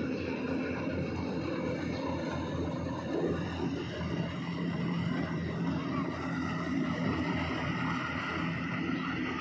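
Yanmar combine harvester running steadily while harvesting standing corn: a continuous engine-and-machinery hum with no breaks.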